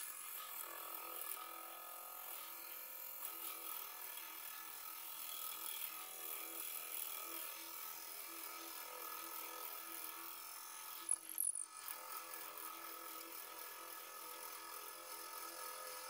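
Wood lathe running with a drill bit hand-fed into the centre of the spinning wooden blank, in footage played at four times speed: a steady, high buzzing hum. A short sharp tick sounds about two-thirds of the way through.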